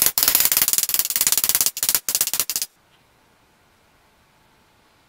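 Mallet rapidly tapping a new wet cylinder sleeve down into an Allis-Chalmers WD45 engine block, driving it past its soap-lubricated O-rings to seat on its shoulder. A fast run of sharp blows, with two short pauses, stops about two and a half seconds in.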